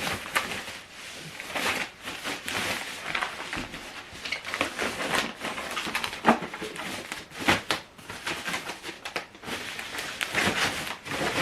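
Packaging being handled during an unboxing: irregular rustling and scraping, with a few sharp knocks as the rear speakers are taken out.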